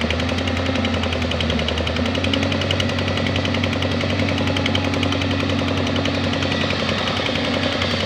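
Doosan DX220 excavator's diesel engine running steadily with a fast, even clatter; the engine note shifts slightly about two seconds in.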